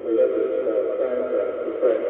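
Music from an AM longwave broadcast coming in suddenly through a Yaesu FRG-100 communications receiver, sounding muffled and narrow, with no treble, as AM radio reception does.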